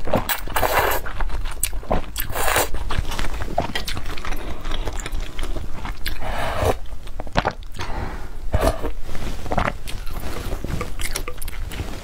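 Noodles slurped up out of a soupy bowl in several short, noisy draws, with wet chewing and mouth clicks between them.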